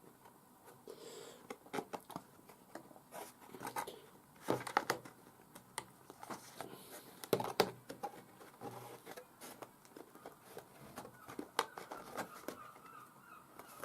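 Pieces of a cardstock model bridge being handled and slotted together: scattered faint taps, rustles and scrapes of card as the notches of the bridge side and road bed are lined up and pushed home.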